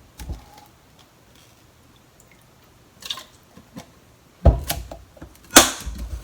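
Kitchen prep while soy sauce is measured into a cup of sauce: mostly quiet, a faint drip-like sound about three seconds in, then two loud knocks about a second apart near the end, like items set down on a counter.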